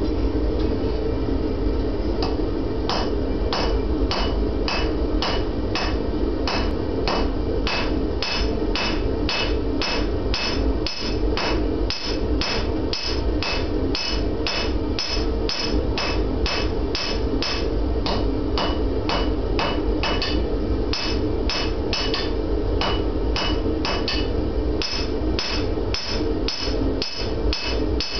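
Hand hammer striking a red-hot steel bar on an anvil to draw out a two-sided taper: steady blows about two a second, each with a bright ringing ping, starting about two seconds in. A steady low roar runs underneath.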